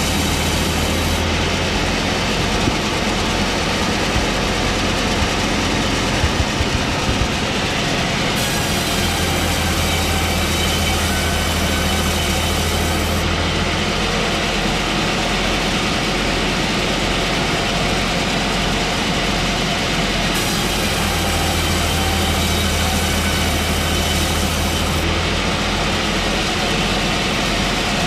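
Track saw running steadily, its motor and blade making a constant loud machine noise with a low hum, over a series of spliced-together shots.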